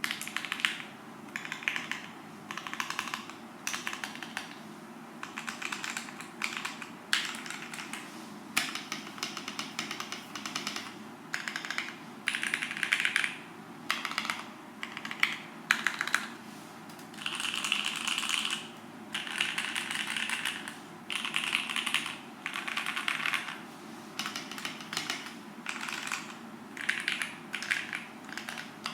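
Typing on a Forever 65 mechanical keyboard with lubed Gateron Ink Black linear switches on a carbon fibre plate: quick runs of key presses in bursts of a second or two, with short pauses between them.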